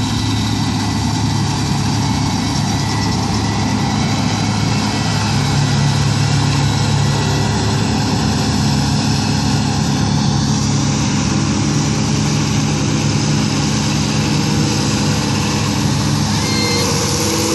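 Combine harvester's diesel engine and threshing machinery running steadily while it harvests barley. A tractor pulling a grain trailer comes close near the end, and its engine joins the sound.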